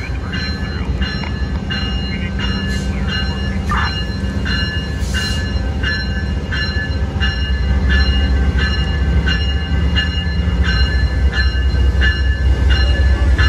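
Graham White electronic locomotive bell on a GE P42DC Genesis ringing steadily, about one and a half strokes a second. Under it the diesel locomotive's deep rumble grows louder about halfway through as the engine draws alongside.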